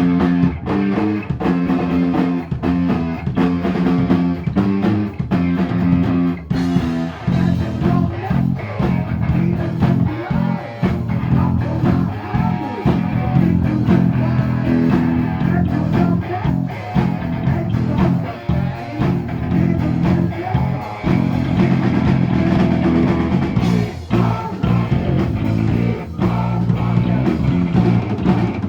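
Heavy metal music: a repeating electric guitar riff over bass guitar and a drum kit.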